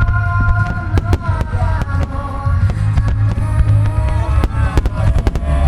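Starmine fireworks bursting in rapid, overlapping bangs and crackles over deep booming, with loud music playing over loudspeakers at the same time.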